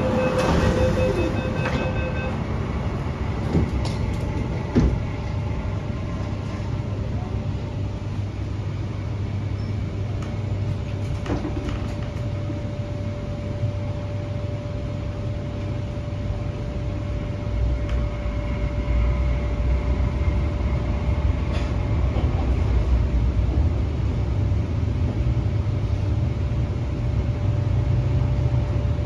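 Cab-interior sound of an MTR Hyundai Rotem K-Train electric multiple unit under way in a tunnel: a steady low rumble of wheels and running gear that grows louder in the second half. A thin steady whine enters about ten seconds in. Short repeated electronic beeps sound in the first two seconds.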